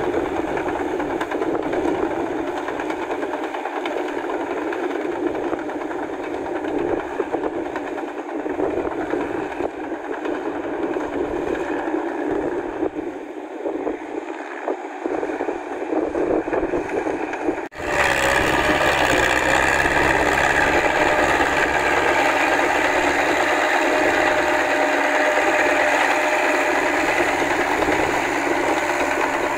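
Massey Ferguson tractor on steel paddy tracks working a rotary tiller through flooded mud: the engine running steadily under load with mechanical clatter from the tracks and tiller. About two-thirds of the way in the sound changes abruptly to a louder, steadier engine note.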